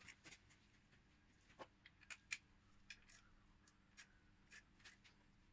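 Near silence with a scattering of faint, short clicks and light taps as a hand handles tools or parts in a car's engine bay, over a faint steady room hum.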